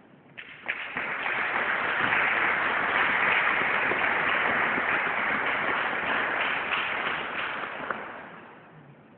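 Audience applauding: a few separate claps, then dense, steady clapping for about seven seconds that dies away near the end.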